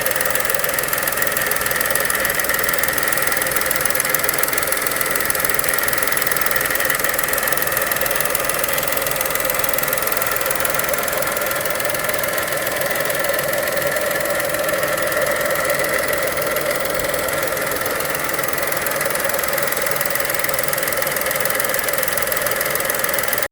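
Suzuki Hustler's 660 cc three-cylinder turbo engine running steadily with a gritty, rattling abnormal noise ("jari-jari"), which was traced to a faulty PCV valve.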